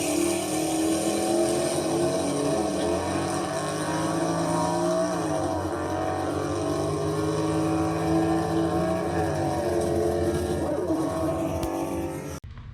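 Engine running hard with its pitch wavering up and down, cutting off abruptly near the end.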